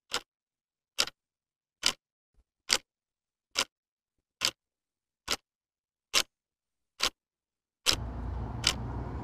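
Clock ticking, one sharp tick a little less than every second over silence. About eight seconds in, a low drone comes in under the ticks.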